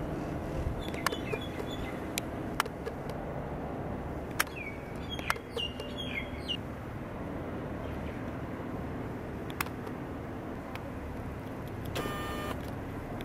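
Steady low background rumble with scattered sharp clicks and a few short, high chirps that drop in pitch, clustered around the middle. A brief buzzy tone sounds near the end.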